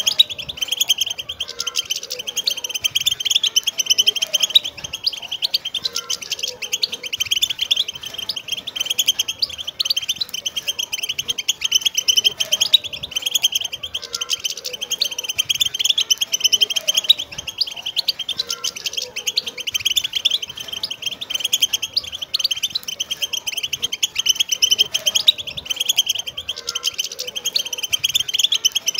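A flock of wild European goldfinches chattering: dense, unbroken twittering made of rapid high chirps and trills.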